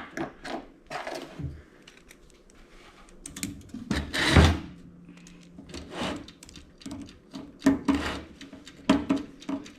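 Scattered clicks and knocks from a toaster oven's sheet-steel parts and wiring being handled and worked on during disassembly, with one louder clatter about four seconds in.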